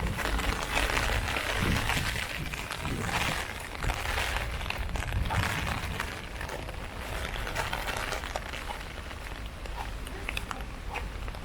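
Heavy rain falling on an umbrella: a steady dense hiss with many sharp ticks of single drops striking it.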